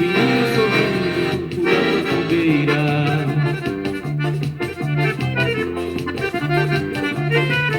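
Forró song in an instrumental break: accordion playing the melody over a steady, repeating bass rhythm, with no singing.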